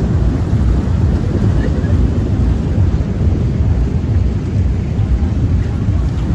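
Wind buffeting the microphone on a moving river cruise boat: a loud, steady low rumble.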